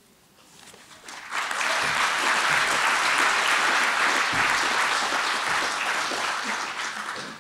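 Audience applauding. The clapping starts about a second in, holds steady, and begins to fade near the end.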